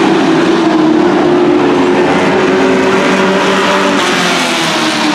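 Dirt-track race truck engines running loud and steady at speed around the oval, with the pitch easing down a little near the end.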